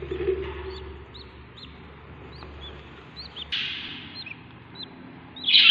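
Budgies chirping: short, high, hooked chirps every half second or so, with two harsher rasping calls, the second and loudest near the end.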